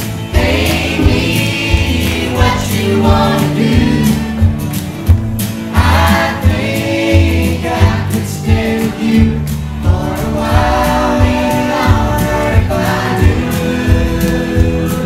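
A song playing: singing over drums and bass with a steady beat.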